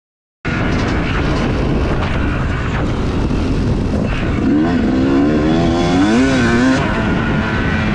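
Yamaha YZ250's single-cylinder two-stroke engine running under load on a motocross track, its note rising and falling several times as the throttle is worked. The sound starts abruptly about half a second in.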